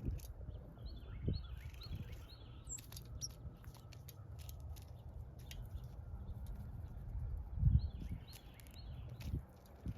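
Small birds at a feeder giving two short runs of quick high chirps, one near the start and one about three-quarters of the way in, among scattered light taps and clicks. A low rumble runs underneath, with a dull thump just before the second run ends.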